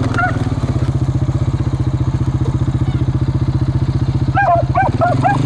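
Beagles baying in short, rising-and-falling calls, briefly at the start and again from about four seconds in, over a vehicle engine idling with a steady low throb.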